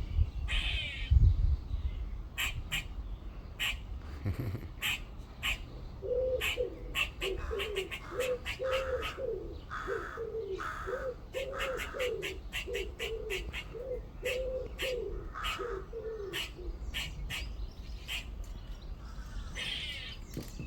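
Grey squirrel alarm calls: a long series of short, sharp barks, with a run of lower, pitched notes repeated about twice a second through the middle.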